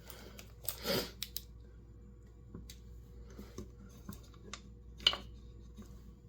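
Scattered light clicks and taps of a new fuel filter and its fuel line being fitted into a chainsaw's fuel tank, with a short rustle about a second in and a sharper click about five seconds in.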